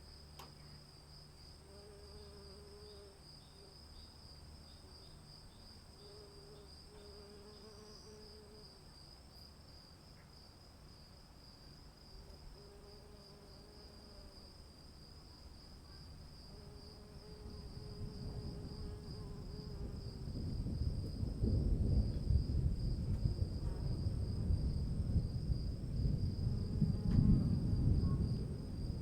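Crickets trill steadily while a short low call repeats every couple of seconds. About two-thirds of the way through, a deep rumble of thunder builds and rolls on loudly to the end.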